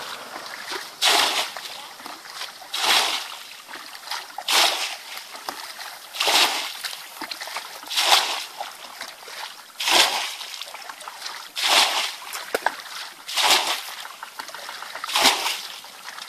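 Muddy ditch water being bailed with a plastic bucket: a splash of water thrown out about every second and three-quarters, nine in all, with low sloshing between them.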